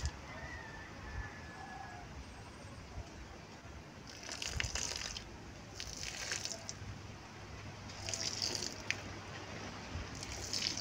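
Water poured from a plastic jug onto loose soil, splashing and soaking in, the splashing swelling and easing several times.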